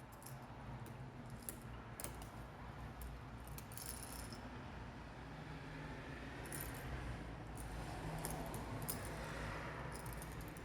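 Faint scattered metallic clicks and light rattling of a screwdriver and wire against an electrical outlet, as the bare copper ground wire's hooked end is screwed down under the outlet's ground screw.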